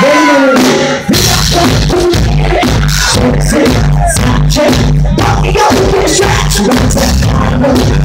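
Live band with a woman singing into a microphone: drums, bass and vocals kick in loud about a second in, after the tail of crowd whoops.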